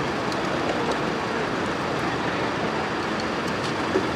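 Steady running noise of heavy vehicles, with no siren sounding.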